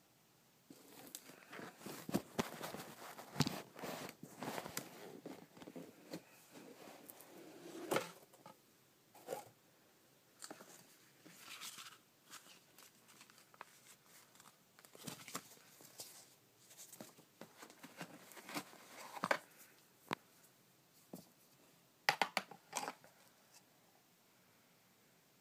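Packaging of a boxed RC brushless motor and speed-controller set being opened and handled by hand: irregular rustling, scraping and knocks of the box and its insert, ending with a few sharp clicks.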